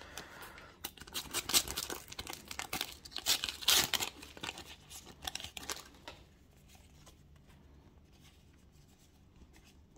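A Panini World Cup sticker packet being torn open and its wrapper crinkled: a dense run of quick tearing and crackling for about five seconds, loudest about a second and a half in and again near four seconds, then dying down to faint rustling.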